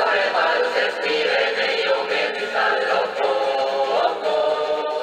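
A choir singing a song in several parts, played from a vinyl record on a portable record player.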